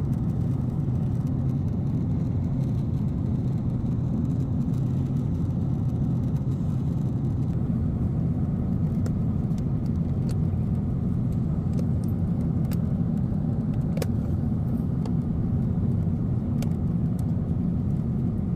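Steady low rumble of an airliner heard from inside the cabin, with a few faint clicks.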